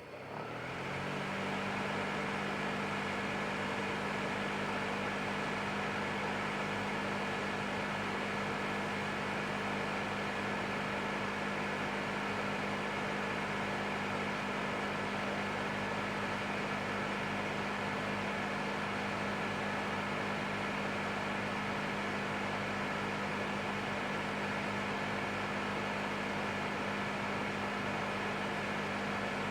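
Electric space heater's fan running: it spins up over the first second or so, its hum rising in pitch, then holds a steady hum with a few fixed tones over an even rush of air.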